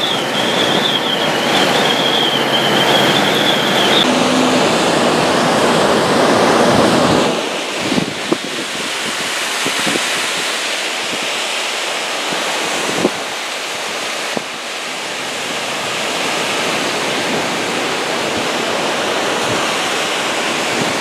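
For the first few seconds, road noise inside a moving vehicle with a wavering high whine. After a cut, strong gusty wind on the microphone with a few buffeting thumps, over waves breaking on a lake shore in a storm.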